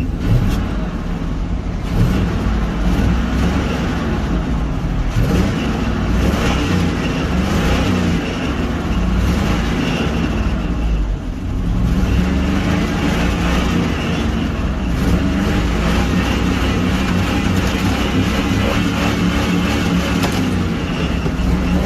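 Pickup truck engine running hard, its revs rising and falling, with a brief drop about halfway through. The owner says the engine now has a rod knock and needs a head gasket.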